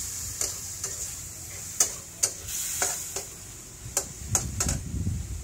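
Metal spatula clanking and scraping against a wok as chicken stir-fries, over a steady sizzle of hot oil, with irregular sharp clinks and a low rumble near the end.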